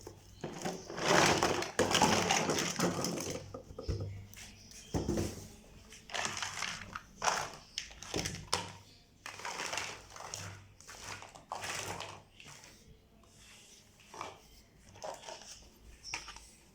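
Toy packaging being handled and opened: irregular crinkling and crackling, loudest and most continuous in the first few seconds, then in shorter scattered bursts.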